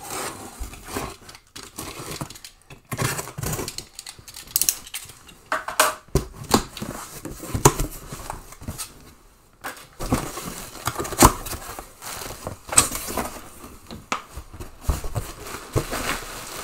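A cardboard shipping box being opened: a box cutter slitting the packing tape, then the flaps pulled open and handled, giving irregular scraping, rustling and sharp clicks and knocks.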